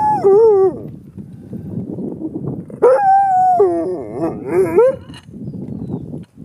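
Sled dog howling twice: a short call at the start and a longer one from about three seconds in, both wavering up and down in pitch, with a rough, grainy noise between them.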